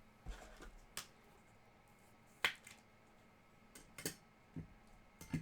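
Trading cards and their packaging being handled on a table: five sharp clicks and taps spread out, the loudest about halfway through.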